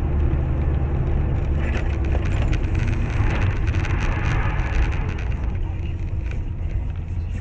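Car cabin noise recorded by a dashcam while driving on a snowy highway: a steady low rumble of engine and tyres, with wind noise and scattered light ticks.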